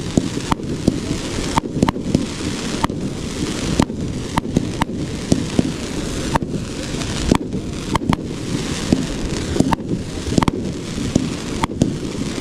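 A 1.4G firework cake firing shot after shot, with a sharp launch or burst about once or twice a second. Between the shots, crackling from its gold crackling tails and crackling willow breaks fills the gaps.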